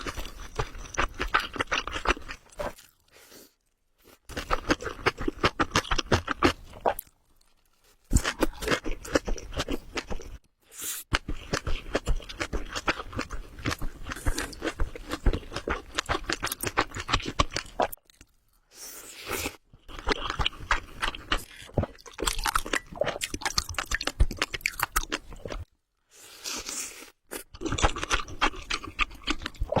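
Close-miked chewing of mouthfuls of spicy ramen: long runs of rapid, wet, crunchy mouth clicks, broken by a few short pauses.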